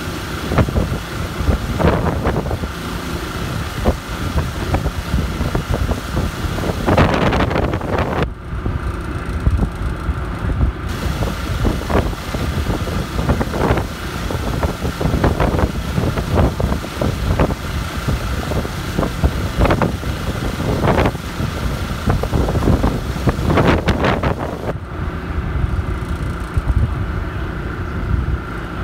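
Motorboat running steadily at speed, its engine humming at a constant pitch, with heavy wind buffeting on the microphone and stronger gusts around 2, 7, 20 and 24 seconds in.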